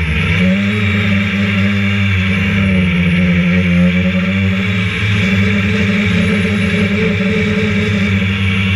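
Electric motors and propellers of an RC drone, heard close up through the GoPro mounted on it: a steady, loud buzzing whine whose pitch dips briefly near the start and wavers slightly with throttle.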